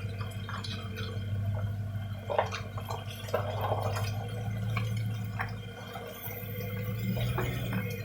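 Air Lift air-bag suspension on a Toyota Tundra making irregular short pops and clicks over a steady low hum.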